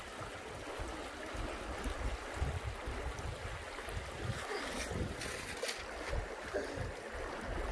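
Shallow creek running over stones, with wind buffeting the microphone and a few light splashes about halfway through.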